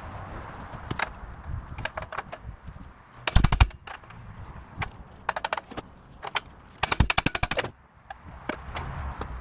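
Two rapid bursts of hammering on metal, each a quick run of blows lasting well under a second, with single knocks scattered between. They come as the new lower ball joint is driven down into the ATV's aluminium strut arm.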